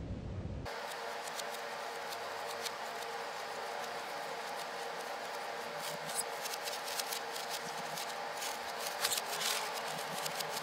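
Felt-tip marker writing on inflated latex balloons: many short scratchy strokes, denser in the second half, over a steady hiss.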